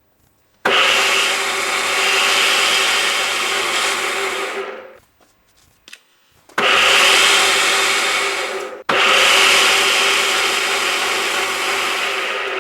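An electric power tool motor running in three spells of a few seconds each. Each starts abruptly and dies away at the end, with a steady hum under a loud rushing noise.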